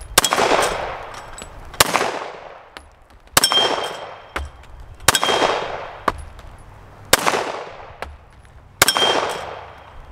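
Glock 41 MOS long-slide .45 ACP pistol firing six slow, aimed shots, one every second and a half to two seconds, each followed by a trailing echo. Several shots bring a high ringing ping from steel targets.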